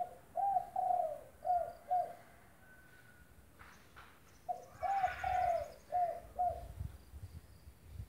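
Spotted dove (tekukur) cooing: two phrases of low, repeated coo notes, each about five notes long, separated by a pause of about two seconds. A short click sounds in the pause, and faint high chirps of other birds come through in the background.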